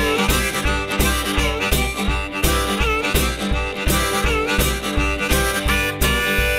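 Blues boogie played live by a one-man band: a harmonica in a neck rack plays the lead with bending notes over strummed acoustic guitar, and a bass drum keeps an even beat of about four thumps a second.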